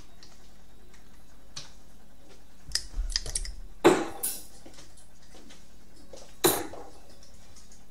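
Darts striking a dartboard: two sharp hits about two and a half seconds apart, with a few lighter clicks and taps just before the first.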